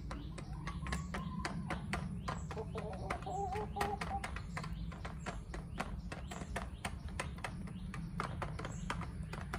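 Chickens pecking feed from a plastic feeder bowl: quick, irregular beak taps, several a second. A hen gives a brief low, wavering call about three seconds in.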